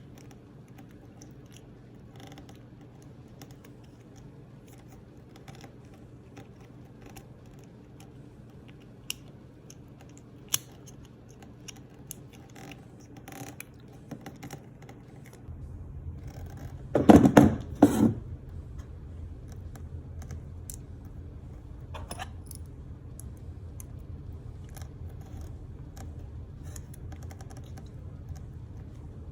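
Small clicks and handling noises as a cable and its heat-shrink sleeving are worked by hand; about halfway through a heat gun switches on and runs with a steady low hum, with a short burst of loud knocks soon after it starts.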